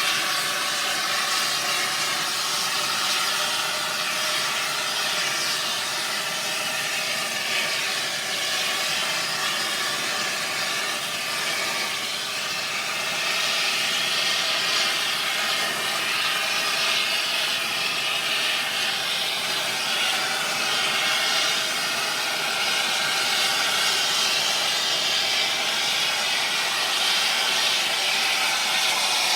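Air torch flame played on metal: a steady, even hiss with faint steady tones running through it.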